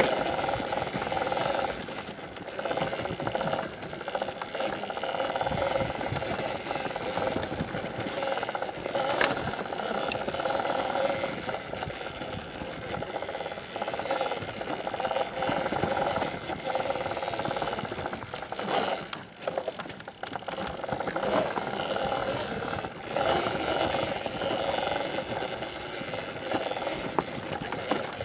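CZEM Drill One electric enduro bike being ridden: a steady motor and drivetrain whine over rushing noise, with scattered knocks.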